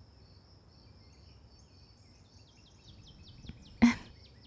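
Outdoor ambience: a steady high insect drone, with a bird chirping in quick, falling notes from about two seconds in. A short, sharp sound cuts in just before the end.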